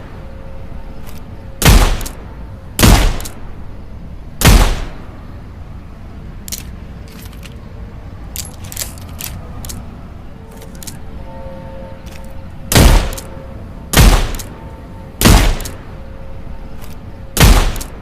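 Snub-nosed .38 revolver firing single shots: three shots, a stretch of faint light clicks, then four more shots spaced about a second apart.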